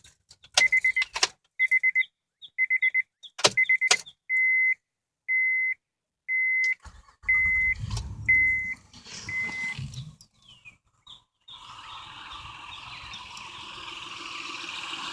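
Key clicks and a dashboard warning chime beeping about once a second for several seconds, then the warm 2007 Honda Odyssey's V6 being cranked and starting, settling into a steady run that rises slightly near the end.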